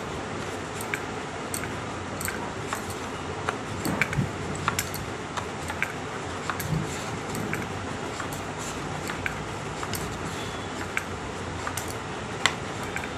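Rolling pin rolling out a stuffed paratha on a board, with scattered light clicks and clinks from the pin and the bangles on the rolling hands, over a steady hiss.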